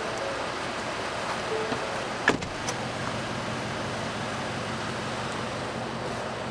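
Ford F-150 pickup's engine running steadily, with a sharp click a little over two seconds in.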